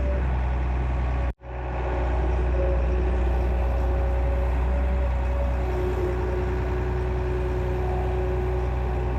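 Excavator's diesel engine running steadily with a deep hum; the sound drops out abruptly for a moment about a second and a half in, then fades back.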